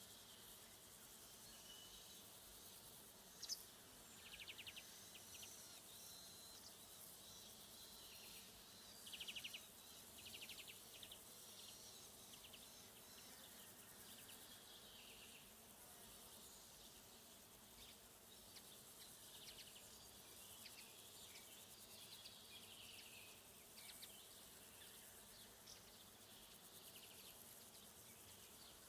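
Faint summer woodland ambience: a steady high insect hum with scattered short bird chirps and quick trills, the loudest a few seconds in and again about nine seconds in.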